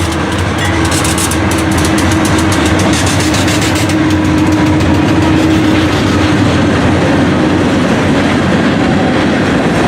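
Freight train led by a Pan Am Railways GE B40-8 diesel locomotive passing close by: a loud steady rumble with rapid clicking of wheels over rail joints. A steady hum from the locomotive fades about six seconds in.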